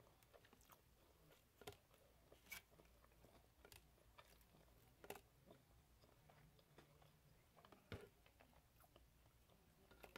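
Faint chewing and biting of fried breaded chicken strips, with about five sharp crunches spread through.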